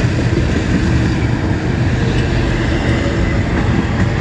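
Freight cars of a long mixed freight train (autoracks and covered hoppers) rolling past close by: a loud, steady rumble of steel wheels on the rails.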